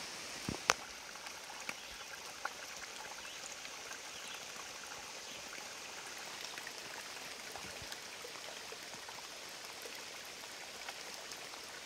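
Small woodland stream trickling and splashing over rocks, a steady hiss, with a few light knocks in the first few seconds.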